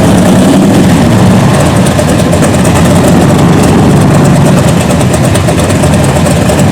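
Straight-axle gasser's engine idling loudly and steadily with a deep, low rumble.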